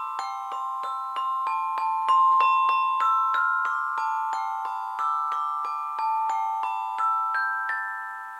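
Mallet percussion music: single notes struck on tuned metal bars, about three a second, each note ringing on under the next in a slow, even pattern.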